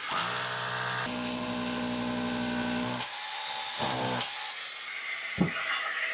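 Power drill with a dust-extraction shroud boring a fixing hole into the wall: the motor runs steadily for about three seconds, then gives a short second burst about four seconds in. A single sharp click follows near the end.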